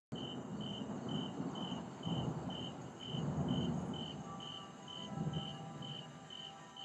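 Crickets chirping steadily, about two chirps a second, over low rumbles of thunder that swell and fade three times. Faint held musical notes come in past the middle.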